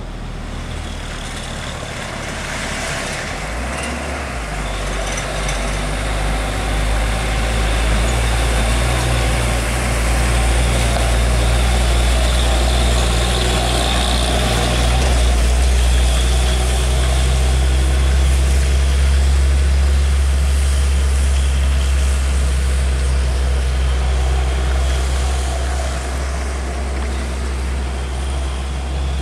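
A large engine running with a steady low drone and a broad rush of noise, growing louder a few seconds in and easing off slightly near the end.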